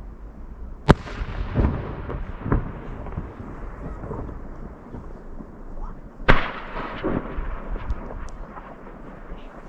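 Aerial firework shells bursting: two sharp bangs about five seconds apart, each followed by several lower booms and smaller cracks.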